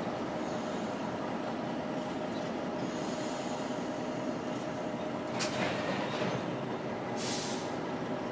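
Diesel-electric freight locomotive running as it moves slowly through a rail yard, a steady low engine drone. Two short bursts of high hiss in the second half, the longer one near the end.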